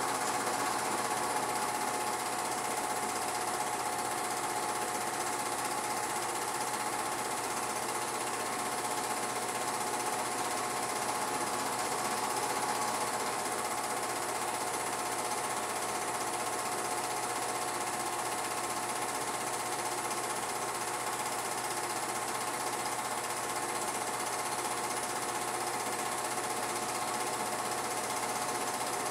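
Home-movie film projector running steadily, its mechanism giving an unchanging mechanical whir with a few constant tones.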